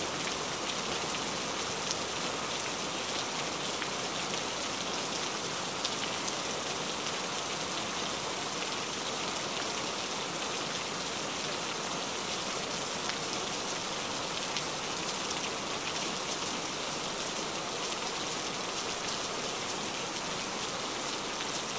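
Steady heavy rain, an even hiss of drops falling on surfaces, with a few faint individual drop ticks.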